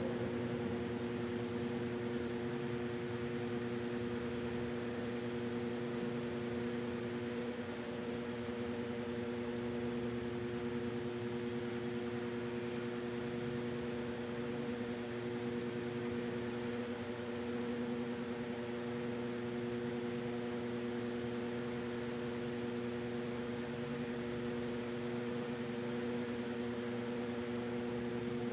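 A steady mechanical hum, a few constant low tones over a light even hiss.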